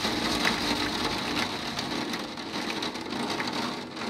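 Heavy thunderstorm rain pouring down in strong, gusting wind, a steady dense rush of noise.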